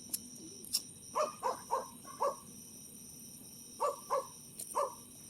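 A dog barking: four quick barks, a pause, then three more.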